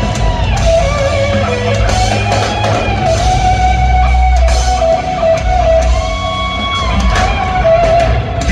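A live rock band playing loud, with an electric guitar lead holding long notes that bend slowly in pitch over bass and drums.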